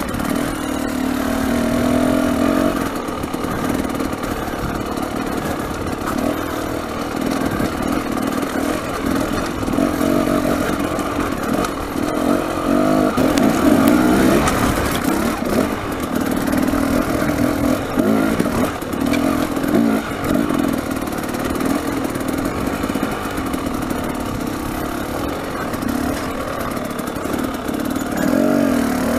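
Dirt bike engine running at low revs with repeated throttle blips, the pitch rising and falling, as the bike climbs slowly over a rocky trail, with some clatter over the rocks.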